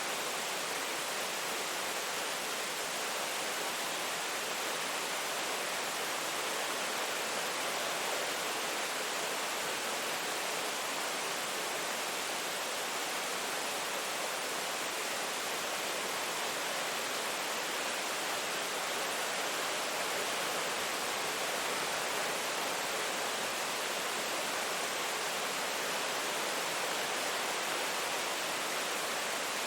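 Steady rain: an even, unchanging hiss.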